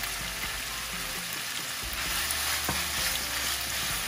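Steak frying in a frying pan: a steady sizzle that grows a little louder about halfway through, with one light knock a little past halfway.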